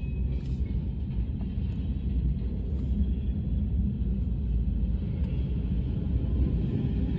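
CSX local freight train rolling past, a steady low rumble of freight cars on the rails.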